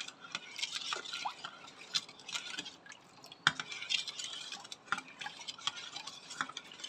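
A spoon stirring mango juice in a stainless steel bowl: the liquid swishing, with the spoon clicking and scraping against the bowl's sides every second or so.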